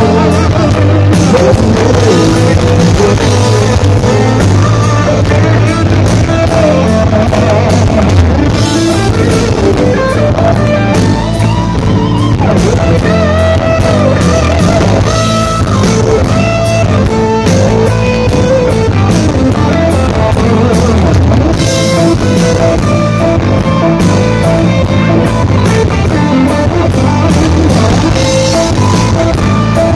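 A gospel band playing live, heard loud through a phone's microphone: electric guitar over a drum kit and bass guitar in a steady rock beat.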